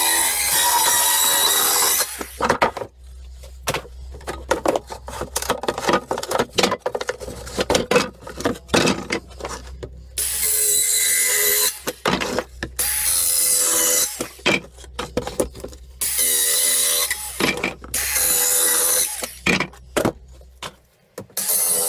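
Worx cordless compact circular saw cutting through pallet boards in several short bursts of a few seconds each. Between the cuts, loose wooden boards and offcuts clatter and knock.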